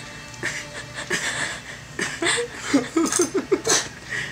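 A man laughing, breathy at first, then a quick run of about half a dozen 'ha' pulses a little past halfway.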